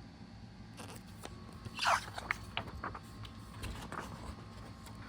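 Paper rustling as the glossy pages of a printed catalog are handled, with a louder swish about two seconds in and a few soft clicks, over a faint low hum.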